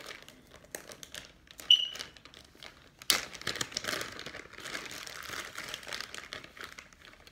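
Clear plastic packaging bag around a hair bundle crinkling as it is handled and twisted open. There is a sharp click about a second and a half in, and the crinkling gets louder and denser from about three seconds in.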